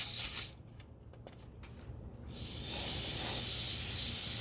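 Compressed air hissing from an air compressor's hose. It cuts off about half a second in and starts again about two and a half seconds in, then holds steady.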